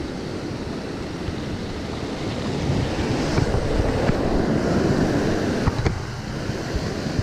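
Surf washing in over the sand, with wind buffeting the microphone. The wash swells louder from about three seconds in, and a few small clicks come near the end.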